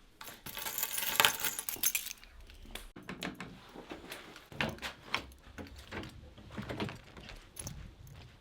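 Jangling and clicking handling noises: a dense rattling flurry in the first two seconds, then scattered sharp clicks and knocks.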